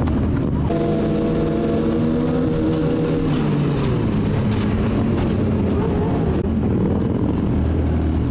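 Sport motorcycle engines running at road speed, the engine note climbing about a second in, holding, dropping a few seconds in and climbing again near the end as the throttle opens and closes, over steady wind rush.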